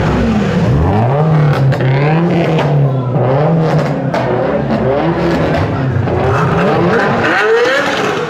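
A performance car's engine revving, its pitch swinging up and down again and again as the throttle is blipped, with a few sharp cracks along the way.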